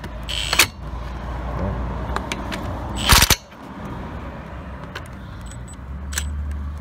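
Impact wrench doing up wheel bolts in short bursts: a brief burst just after the start, then a louder, longer hammering burst about three seconds in.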